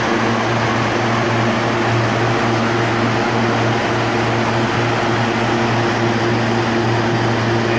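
High-expansion foam generators discharging in a hangar: a loud, steady rushing of foam and water pouring down, over a constant low fan hum.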